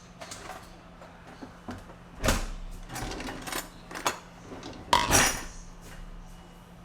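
Kitchen cabinet door and a dish being handled: a series of knocks and clatters, with the two loudest about two seconds in and about five seconds in.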